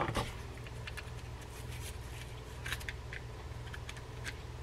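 Faint, scattered light clicks and taps as a Penn JigMaster 500S fishing reel's metal side plate and its small parts are handled, over a steady low hum.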